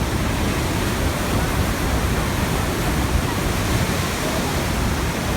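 Iguazú Falls waterfall: a steady rush of falling water, with a heavy low rumble under an even hiss.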